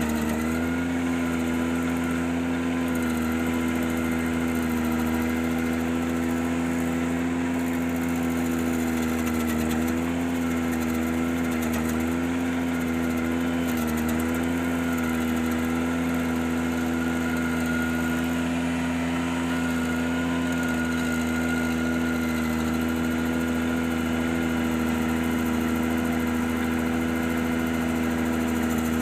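Ventrac 4520Z compact tractor's Kubota diesel engine running steadily under power, its pitch dipping slightly a few times.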